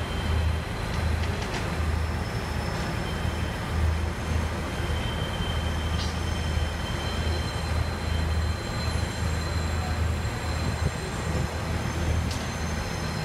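Freight train of covered wagons rolling away along the platform line, its wheels running on the rails, with thin high squeals from the wheels coming and going.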